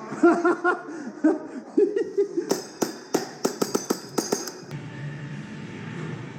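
Brief shouting, then a rapid string of about ten sharp airsoft gun shots over two seconds that cuts off abruptly.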